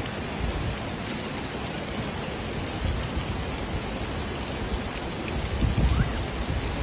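Steady hiss of rushing water. A few low rumbles come through about three seconds in and again near the end.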